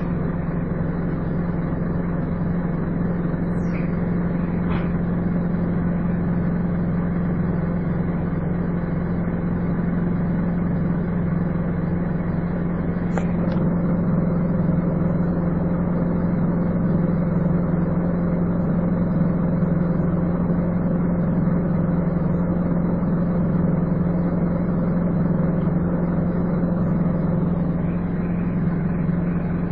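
Scania N230UD double-decker bus running with its steady vacuum-cleaner-like 'hoover' drone, a constant low hum that holds an even level throughout.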